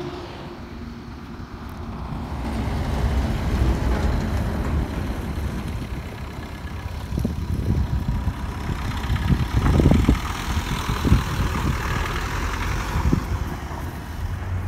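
Maruti Suzuki Swift VDi's 1.3-litre four-cylinder diesel engine running as the hatchback crawls over a rutted dirt track, growing louder as it comes up to and passes close by, loudest about ten seconds in. A few short knocks sound as it lurches over the ruts.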